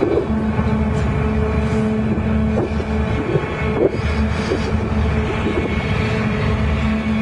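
Engine running steadily at an even pitch, a heavy continuous drone.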